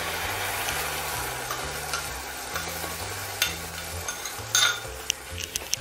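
Ground tomato and garlic chutney paste sizzling in hot oil over frying onions in a kadai, just after being poured in. The sizzle is loudest at first and eases off, with a few sharp clicks in the second half.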